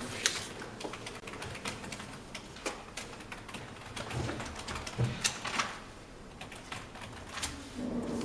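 Irregular small clicks, taps and rustles of things being handled on a desk: a spiral notebook and other items taken out of a handbag and set down. Two duller thumps come about four and five seconds in.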